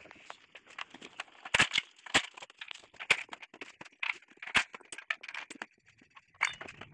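Irregular metallic clinks and knocks of hand tools and steel steering-rack parts being handled, with a few sharper strikes about one and a half, two and four and a half seconds in.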